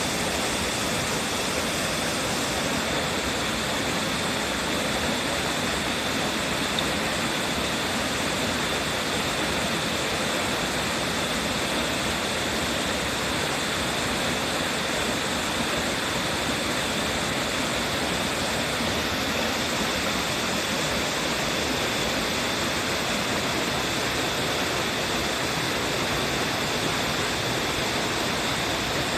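Waterfall water plunging and splashing in a steady, unbroken rush.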